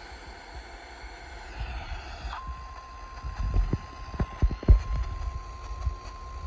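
Radio hiss, then about two and a half seconds in a single steady tone comes on and holds: the NOAA Weather Radio 1050 Hz warning alarm tone that heralds a severe thunderstorm warning. A run of dull low thumps sounds over it, loudest near the middle.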